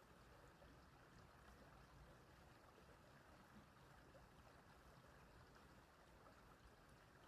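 Faint, steady flow of a small stream.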